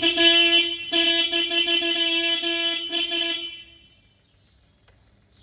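Takeuchi 1.8-tonne excavator's electric horn sounding with its push button bypassed: a short blast, then a longer steady one of about three seconds with a couple of brief drop-outs. The horn works this way, showing that the horn button is faulty.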